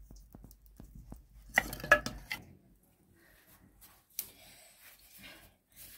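Dishes and utensils clinking and knocking. There are a few light clicks at first, then a cluster of louder ringing clinks about a second and a half to two seconds in, and scattered small knocks after.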